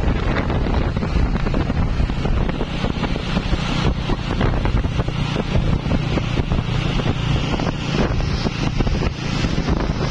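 Mitsubishi light truck running as it drives along the street, a steady engine and road noise heavily buffeted by wind on the microphone.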